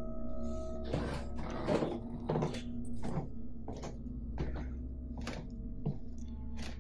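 Footsteps on an old wooden floor, about one every two-thirds of a second, over a steady droning music bed.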